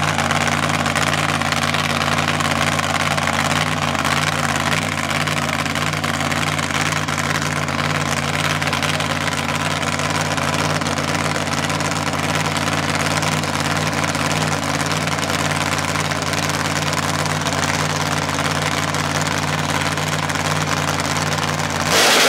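Supercharged Toyota Supra drag car's engine idling steadily at the start line. Near the end the engine revs up sharply and gets louder.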